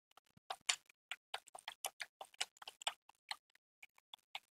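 Typing on a computer keyboard: an uneven run of keystroke clicks, about five a second.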